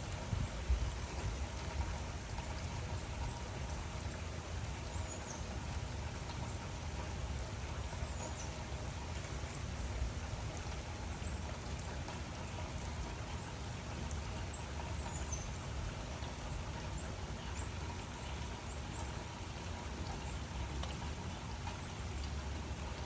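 Steady rainfall, an even hiss of falling rain with a steady low rumble underneath and a few faint high ticks and chirps scattered through it.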